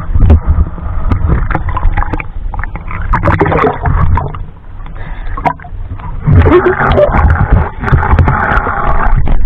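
Seawater sloshing and splashing against a camera held at the surface, with a heavy low rumble and many small sharp slaps and clicks of water.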